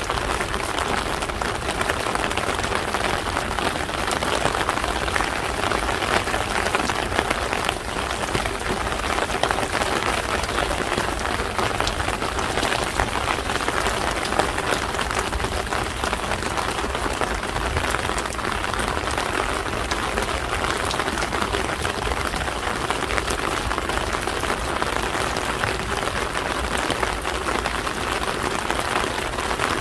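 Steady rain falling, a dense, even patter of many small drops hitting the ground and nearby surfaces.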